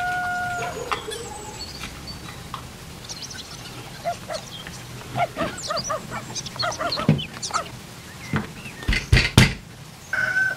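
Plastic parts squeaking as they are pressed and twisted together: a string of short, bending squeaks, with a few sharp clicks about nine seconds in.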